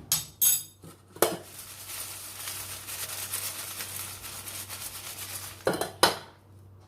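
French fries being tossed and mixed with salt and chilli powder in a dish: a few sharp knocks against the dish near the start and again near the end, with steady rustling of the fries for several seconds in between.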